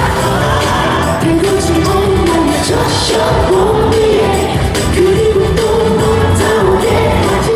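K-pop song performed live: a male lead vocal sings the melody over a loud pop backing track with a driving beat, heard through a concert hall's sound system.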